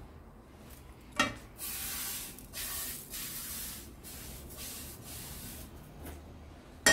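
A knock about a second in, then a series of quick rubbing strokes as the empty frying pan is wiped out.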